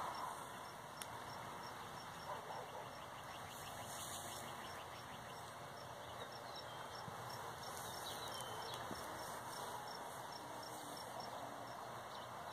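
Quiet outdoor ambience: faint steady insect chirping, with a few faint bird chirps and a couple of small clicks.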